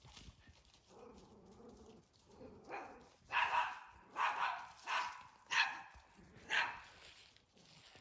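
A dog barking: a series of about six barks roughly a second apart, starting about three seconds in.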